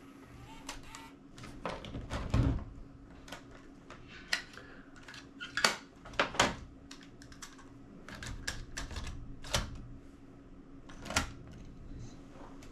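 Irregular clicks and knocks from a Digital8 tape cassette and its plastic case being handled, with a faint steady hum underneath.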